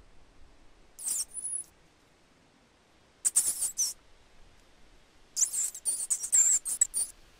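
Rat squeaking: three runs of rapid, very high-pitched squeaks, a short one about a second in, another past three seconds, and a longer run after five seconds.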